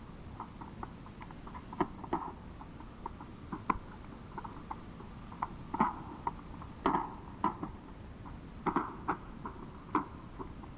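Irregular series of sharp pops and bangs, some much louder than others, from a burning ammunition dump cooking off in the distance, caught on a field tape recording.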